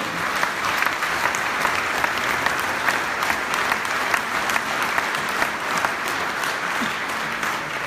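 Audience applauding: dense, steady clapping from many hands, thinning out near the end.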